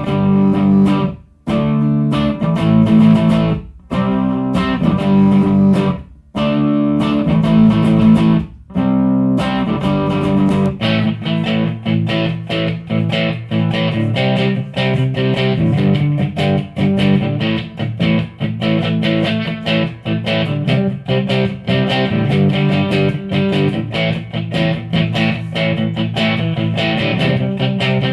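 Electric guitar played through a Line 6 POD Pro amp modeler: held chords, each cut off sharply, about every two seconds for the first nine seconds, then a steady stream of quick picked notes.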